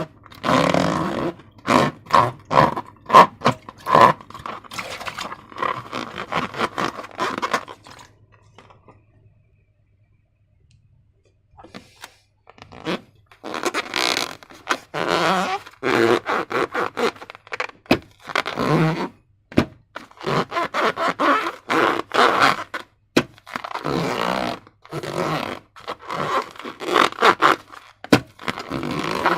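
Slime being handled and worked: irregular scraping and sticky handling noises, broken by sharp clicks, with a pause of a few seconds about a third of the way in.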